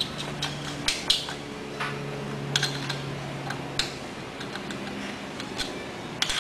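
Irregular metal clicks and taps from an aluminium motorcycle footrest plate and its bolts being handled and fitted against the frame, a dozen or so sharp ticks at uneven intervals.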